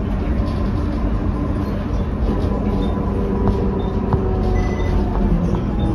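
Cabin noise inside a Volvo B12BLE bus under way: the engine and road rumble run steadily, the engine note drifting slightly in pitch. Light clicks and rattles come from the fittings now and then.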